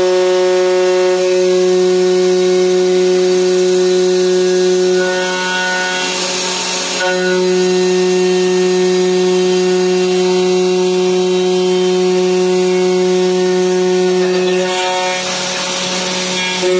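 CNC aluminium profile machining center's spindle and end mill milling aluminium profile: a steady whine of several tones over the hiss of cutting. Twice the cut turns rougher and noisier, about five seconds in and again near the end.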